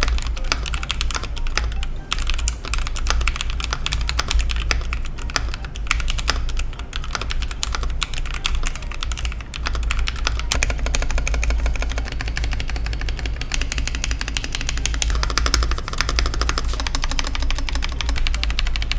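Continuous fast typing on a mechanical keyboard fitted with Akko CS V2 switches, a dense run of keystroke clacks.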